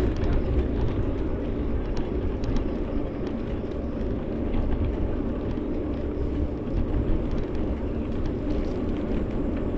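Steady rumbling noise of riding a bicycle outdoors, mostly wind buffeting the microphone along with road noise, with a few faint clicks.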